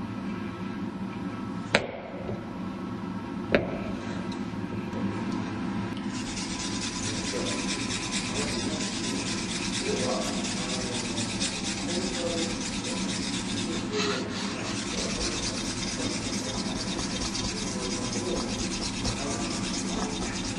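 Hand tool scraping and rubbing the wet surface of a slate inkstone, a continuous dense rasping that starts about six seconds in. Before that there are two sharp clicks of the tool against the stone.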